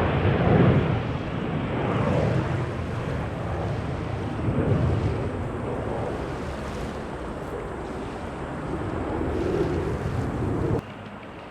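Jet engine rumble from an Airbus A330-300 airliner after landing, slowly fading and mixed with gusty wind on the microphone. It cuts off abruptly near the end.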